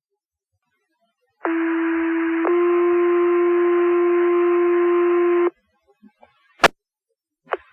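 Two-tone sequential fire pager alert sent over the dispatch radio: one steady tone for about a second, then a step to a second tone held for about three seconds that cuts off sharply. Two sharp radio clicks follow near the end.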